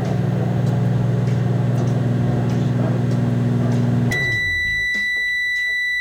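Microwave oven running with a steady low hum. About four seconds in, the hum stops and the oven gives a single long, high beep lasting about two seconds, its end-of-cooking signal.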